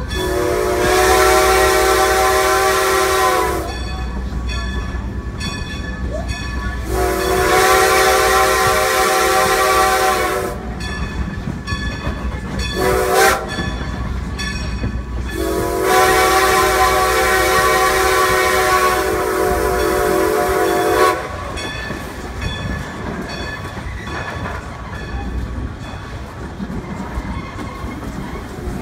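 Strasburg Rail Road No. 90's steam whistle, heard from a passenger coach, blowing two long blasts, a short one and a long one: the grade-crossing signal. Underneath is the steady rumble and click of the coach's wheels over the rail joints.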